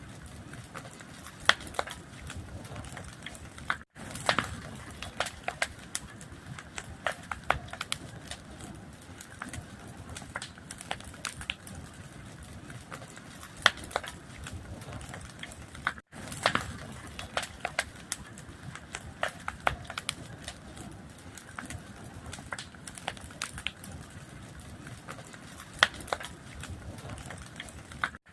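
Fire crackling, with frequent sharp snaps and pops over a soft hiss. The sound cuts out for an instant twice, where the recording loops.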